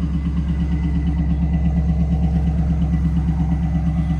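1998 Pontiac Trans Am's LS1 V8 idling just after start-up, with an even pulse of about four beats a second. It has a slight tick on start-up that goes away once warm, and the owner thinks it might have a slight miss.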